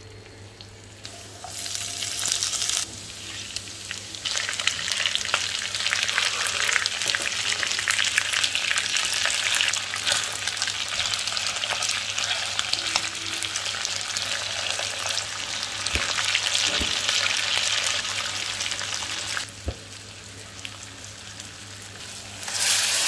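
Hot oil sizzling and crackling in a non-stick frying pan as chopped garlic and then raw hilsa fish steaks fry, with a spatula stirring and turning them and a few knocks against the pan. The sizzle is loud for most of the stretch, softens near the end, and flares up again briefly at the close.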